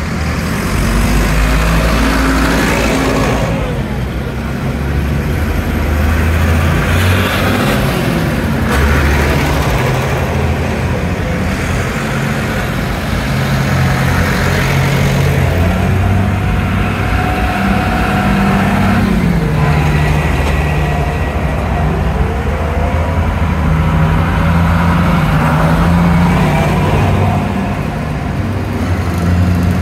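Farm tractors' diesel engines running as a procession of tractors drives past one after another, a blue Ford among them. The engine notes shift up and down in pitch as each tractor slows and pulls on.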